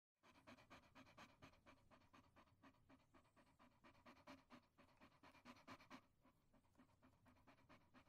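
Dog panting: quick, even, rhythmic breaths of about four or five a second, faint, weakening after about six seconds.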